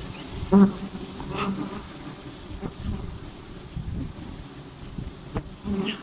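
Wild honeybees buzzing steadily around the nest being harvested. Single bees pass close by with a louder buzz about half a second in, around a second and a half, and again near the end.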